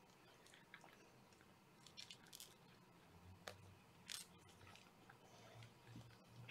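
Near silence with a few faint, scattered rustles and ticks as kittens clamber over a person's lap and trousers.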